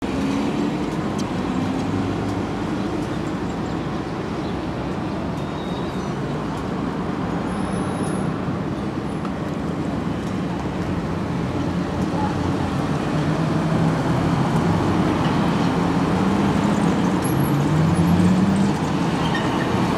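Street traffic: cars drive past and accelerate, engines rising and falling in pitch, while a tram approaches along the road. It grows louder toward the end, peaking as a car passes close with its engine revving up.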